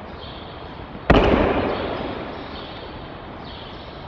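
One loud thud about a second in, trailing off in a hall echo over about a second: a person landing in a breakfall on the mat after being thrown in an aikido technique.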